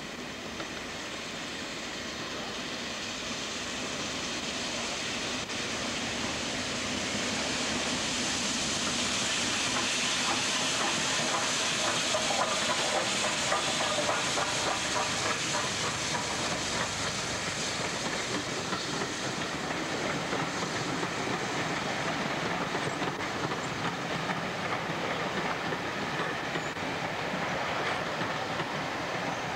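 BR Standard Class 4 4-6-0 steam locomotive No. 75078 approaching and passing close by, its hissing steam and exhaust growing louder up to about halfway and then holding steady, with the wheels clattering over the rail joints.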